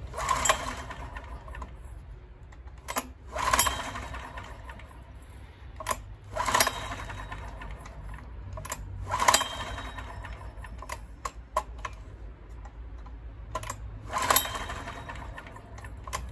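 Recoil starter of a Honda EX1000 portable generator pulled five times, each pull a short rasping whirr of the cord as the engine turns over. The engine does not catch and run between pulls: it is failing to start.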